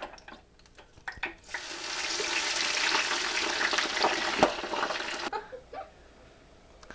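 Frozen smiley fries frying in the hot oil of a small deep fryer: a dense bubbling sizzle that builds up about a second and a half in and cuts off suddenly at about five seconds. A few light clicks and knocks come before it.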